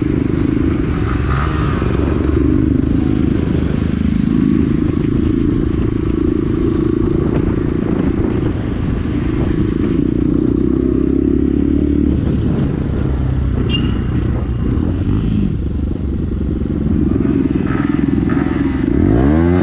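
Motorcycle engine running under way, its note drifting up and down with the throttle. Near the end comes a quick rev whose pitch rises and then falls.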